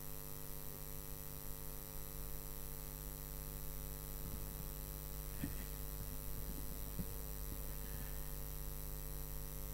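Steady electrical mains hum from the sound system, with a few faint thumps about halfway through.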